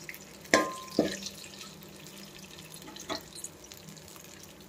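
Mustard seeds and urad dal frying in a spoonful of hot oil in a metal pan for a tempering: a faint, steady sizzle with three sharp clicks. The first click, about half a second in, rings briefly like struck metal; the others come about a second in and just after three seconds.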